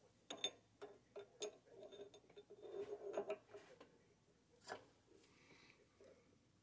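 Faint, scattered metal clicks and taps as a threaded steel shaft is pushed against and into a freshly bored flange nut held in a lathe chuck, test-fitting it for size. There is a busier run of taps about three seconds in and one sharp click near five seconds.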